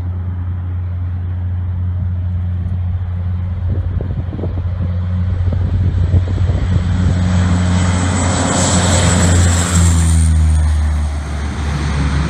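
Canadair amphibious water bomber's engines droning as it skims the lake scooping water, swelling with a loud rush of spray and full power as it lifts off close by; the engine pitch drops about ten seconds in as it passes.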